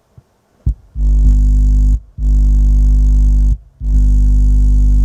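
Tannoy TS2.8 subwoofer reproducing a loud, steady low mains hum in three separate bursts, each starting and stopping abruptly. This is the repaired amplifier driving the speaker from hum picked up through the unconnected input lead held in the hand.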